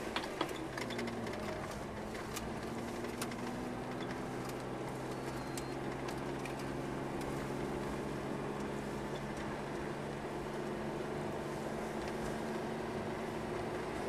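Car engine running steadily with road noise, heard from inside the car as it drives; a few clicks in the first second.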